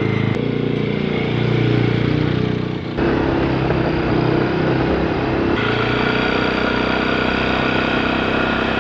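A small motor-vehicle engine running steadily, heard across several abrupt cuts.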